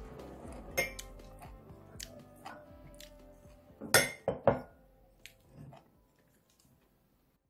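A metal spoon and chopsticks clink against a ceramic bowl and a small glass dish, with a cluster of sharp clinks about four seconds in as a piece of fish is dipped in sauce. Soft background music runs underneath and fades out near the end.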